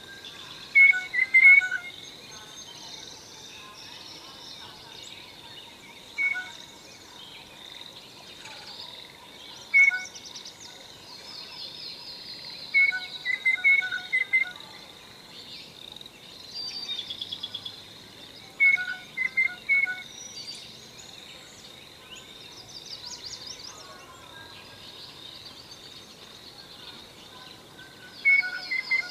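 Blue jay calling: groups of two to four short loud notes, repeated every few seconds. A steady high buzz and fainter high chirps run behind the calls.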